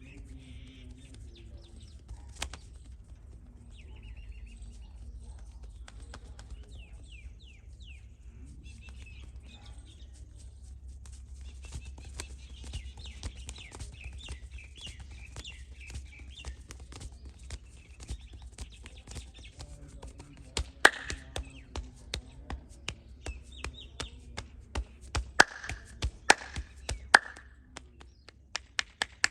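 Hands working over a person in a head and back massage: soft rubbing and tapping that grows denser, with a few loud sharp slaps in the last ten seconds. A low steady rumble sits underneath, with faint bird chirps early on.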